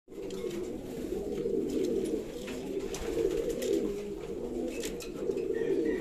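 Racing pigeons cooing continuously in a loft of wire breeding cages, with a few faint clicks scattered through.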